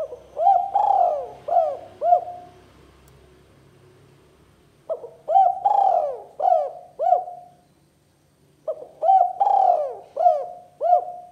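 Spotted dove (tekukur) cooing: three phrases a few seconds apart, each a quick run of about five coos that rise and fall in pitch.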